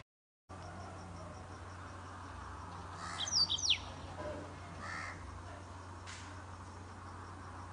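Outdoor birdsong: a few sharp chirps that sweep steeply down in pitch about three seconds in, and a softer call near five seconds, over a steady low hum. The sound drops out completely for the first half second.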